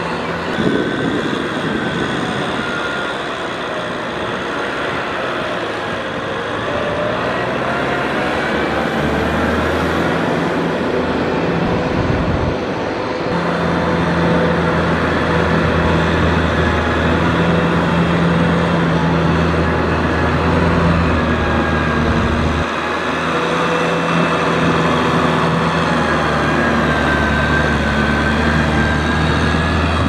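Kubota M6040 tractor's diesel engine running steadily under load as its wheels churn through flooded mud and water. The engine note jumps louder about halfway through and shifts again later.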